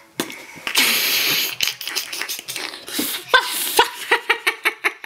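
A person's voice: a loud breathy rush about a second in, then from about three seconds in a rapid run of short rhythmic vocal pulses, about five a second and speeding up.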